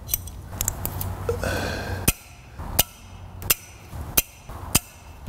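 Click-type torque wrench giving single sharp metallic clicks about every two-thirds of a second as flywheel bolts are brought to 30 Nm, after a couple of seconds of tool-handling noise.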